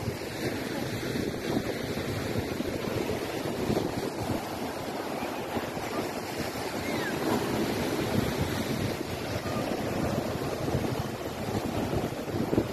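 Sea waves breaking and washing in as surf, with wind buffeting the microphone.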